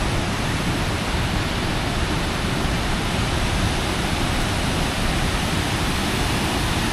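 Water spilling over an old concrete mill dam's spillway, a steady, unbroken rush.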